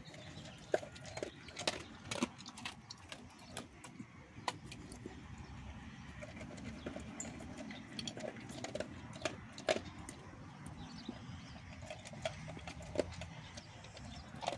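Basset hound eating dry kibble from a stainless steel bowl: irregular crunching and clinks of kibble against the metal.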